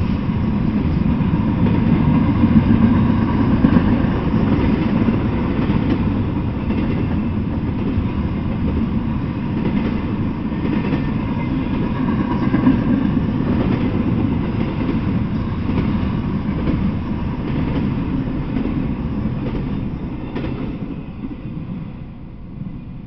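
Double-stack intermodal container freight train rolling past, a steady noise of steel wheels on rails from the well cars. It fades away near the end as the last cars clear.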